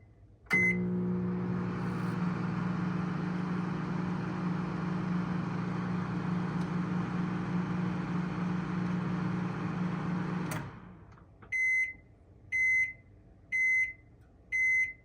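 Tatung TMO-7GD-BKD microwave oven: a keypad beep and it starts running, a steady hum with fan noise for about ten seconds. It then cuts off with a click and gives four short end-of-cycle beeps about a second apart.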